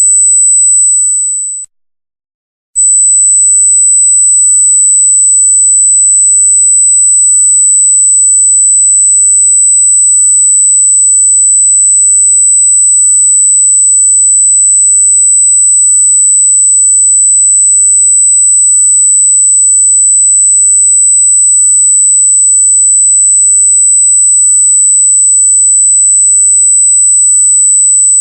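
A loud, very high-pitched pure electronic tone held perfectly steady. It cuts out for about a second near two seconds in, then comes back unchanged.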